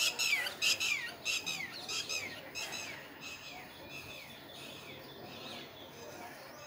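A bird calling over and over: short squawks that each drop in pitch, about three a second, growing fainter and dying away by about halfway through.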